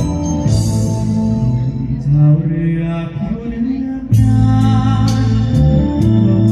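Live band music with a singer. It thins out in the middle, then the full band comes back louder about four seconds in, with regular cymbal strikes keeping the beat.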